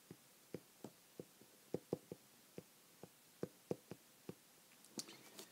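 Stylus tapping and clicking on an iPad's glass screen during handwriting: a run of faint, short taps, about two or three a second, with a brief soft hiss near the end.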